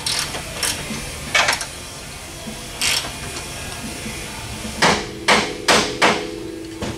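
Sharp metal knocks from a hand tool working at the top of a Fox Body Mustang's front strut during a caster adjustment: a few scattered strikes, then a quicker run of about five clanks near the end, followed by a metallic ring.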